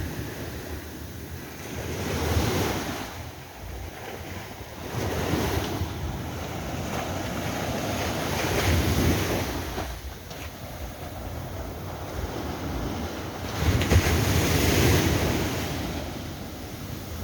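Caribbean sea surf washing onto the shore, with waves rising and falling every few seconds and the biggest surge near the end. Wind rumbles on the microphone underneath.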